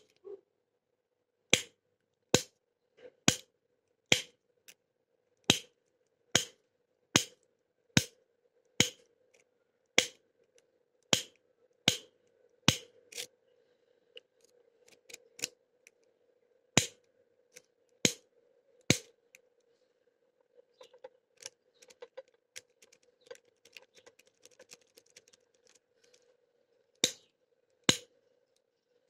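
Lock pick raking the pins of an old Titan padlock under heavy tension: sharp clicks about one every second, with a stretch of softer, quicker ticking about two-thirds through before the sharp clicks return near the end.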